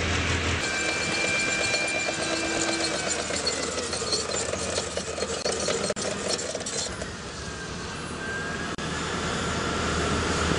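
M1 Abrams tank driving past: the high, steady whine of its gas turbine engine over the rhythmic clatter of its steel tracks.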